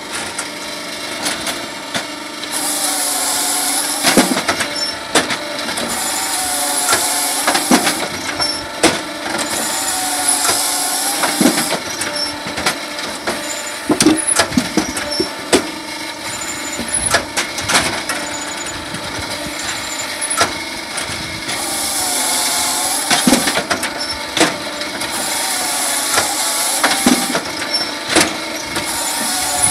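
Electric-driven firewood processor running, with a steady machine drone and frequent knocks and clatter of logs on the chain deck and conveyor. A hissing, whining cycle of a few seconds comes over it three times.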